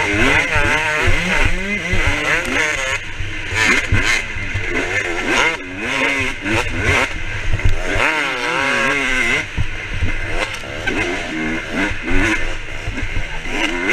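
Motocross bike engine revving hard and repeatedly, its pitch climbing and dropping again and again as the throttle opens and the gears change, over wind rush on the helmet camera.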